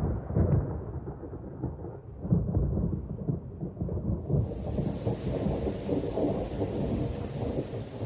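Thunder rumbling in repeated rolling surges. About halfway through, the steady hiss of heavy rain comes in beneath it.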